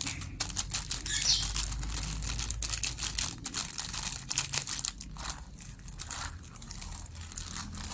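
Plastic bag crinkling as a batch of air-gun pellets is rolled and mixed inside it to coat them with a few drops of oil, with many small irregular crackles and clicks.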